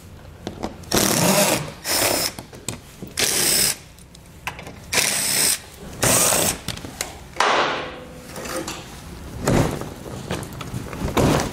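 Cordless power driver with a 7 mm socket spinning screws out of a plastic underbody skid panel in short bursts, about five of them, each around half a second. Scattered clicks and knocks follow near the end.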